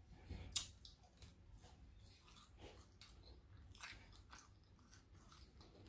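Faint chewing of fried food, with a few soft, scattered mouth clicks.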